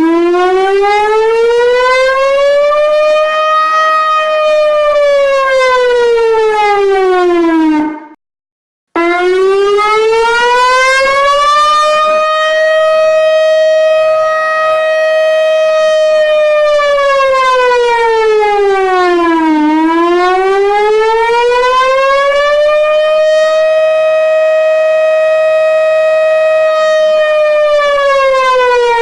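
Civil defence warning siren wailing: a single tone slowly rises and falls, cuts off for about a second, then rises again, holds its high pitch for a few seconds, falls, and repeats the rise-hold-fall cycle.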